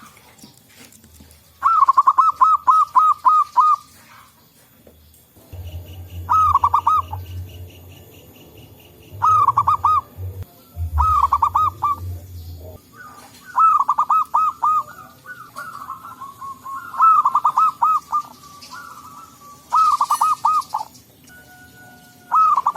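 Zebra doves (local perkutut) cooing: repeated phrases of quick rolling coo notes, each phrase a second or two long, coming every few seconds. A low rumble sits under the calls through the middle part.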